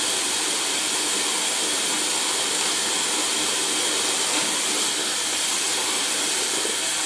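Tap water running steadily from a bathroom faucet into the sink, an even hiss.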